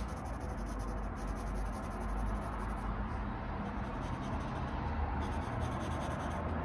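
HB graphite pencil scratching steadily across drawing paper as it shades.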